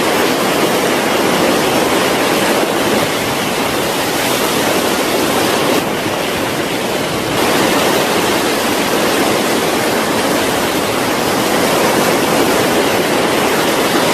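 Fast-flowing floodwater rushing, a loud and steady sound without breaks.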